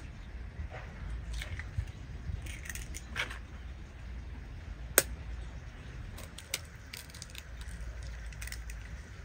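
Eggs being cracked against a glass mixing bowl and their shells pulled apart: a run of sharp taps and shell crackles, the sharpest about five seconds in. A low steady rumble lies beneath.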